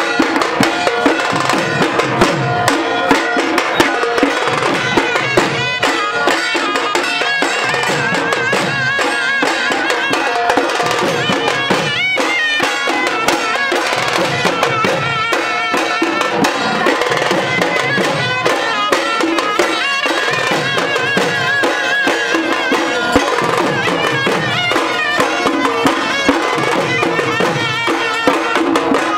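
Traditional Bengali dhak drums played together by several dhakis with sticks in a continuous, dense rhythm, with a brass horn playing a wavering melody over the drumming.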